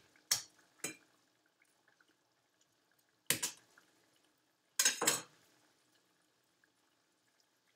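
Sharp knocks of a kitchen knife on a cutting board as garlic cloves are crushed open with the blade: two quick knocks, one a few seconds later, then a double knock near the end.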